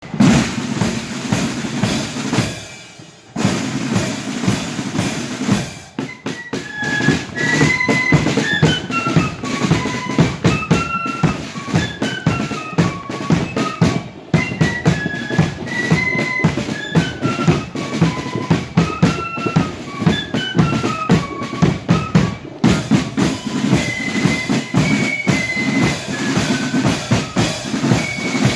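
Marching flute band playing. Bass and snare drums beat alone at first, and about six seconds in the flutes join with a high, stepping melody over the drums.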